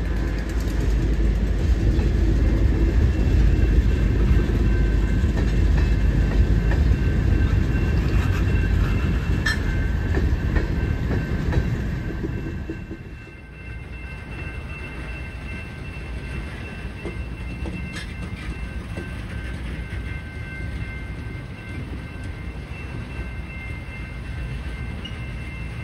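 Freight train of tank cars rolling past on the rails, a steady low rolling sound that drops to a quieter level about halfway through.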